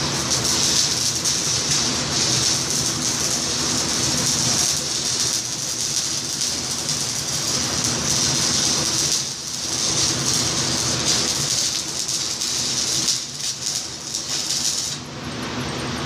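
Stick (shielded metal arc) welding: the electric arc crackling and sizzling steadily, with two brief breaks about nine and thirteen seconds in, then the arc is broken off near the end.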